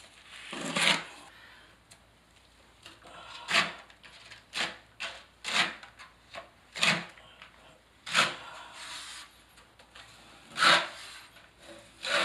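Hand blade scraping and spreading thinset mortar onto cement board behind a sheet membrane, in about nine short, separate scraping strokes at uneven intervals.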